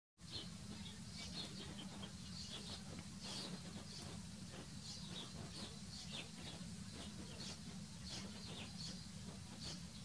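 Small birds chirping: short, high notes, some falling in pitch, a few each second, over a steady low rumble.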